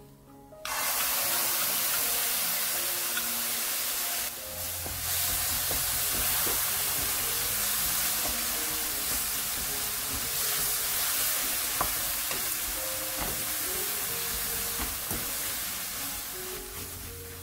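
Red chili-paste seasoning sauce sizzling loudly in a hot nonstick frying pan with dried shrimp. The sizzle starts suddenly about a second in as the sauce hits the pan, dips briefly, then rises again as a wooden spatula stirs it, easing off near the end. Soft music plays underneath.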